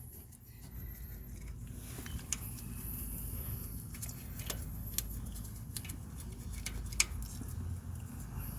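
Light metallic clicks and clinks of hand tools and brake hardware being handled while a caliper is refitted, over a steady low hum. One sharper click comes about seven seconds in.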